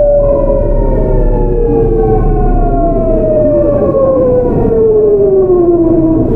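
GEC Alsthom GTO-thyristor VVVF inverter of a Seoul Metro 8000 series train, heard on board: a whine of several stacked tones falling steadily in pitch as the train brakes and slows, over rumbling wheel and rail noise.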